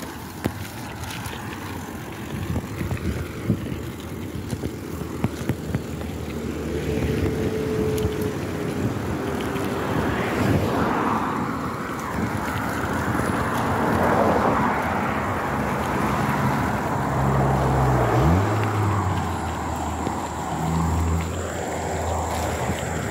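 Cars passing one after another on the road, their engine and tyre noise swelling and fading, heard from a bicycle. Under them is the clatter of the bike riding over a bumpy grass verge.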